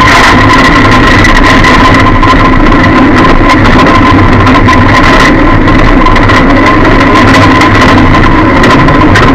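Lada demolition-derby car's engine running, heard loud from inside the stripped cabin, with a steady high whine over it.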